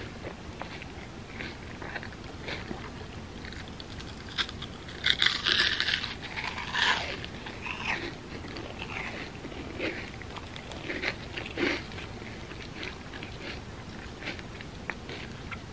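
A person eating crispy fried mochi bread close to the microphone: crackly bites and crunchy chewing, with a louder burst of crunching about five to seven seconds in.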